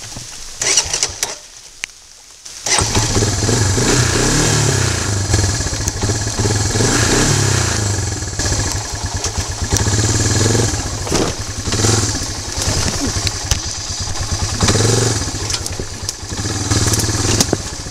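ATV (four-wheeler) engine starts about three seconds in and then runs steadily with a low drone.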